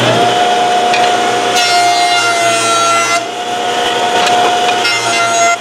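Woodworking jointer running, its cutterhead giving a steady whine, as a board is pushed across it with push blocks to flatten its face. The knives cutting the wood add a rough rushing noise, strongest from about one and a half to three seconds in and again, more faintly, near the end.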